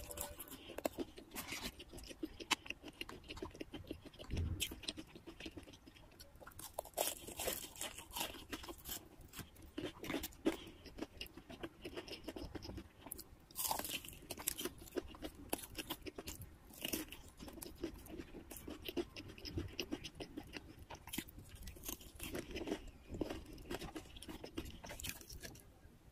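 Close-miked chewing of crunchy breaded fried chicken pieces topped with cheese sauce: a run of many small crunches with louder bites every few seconds.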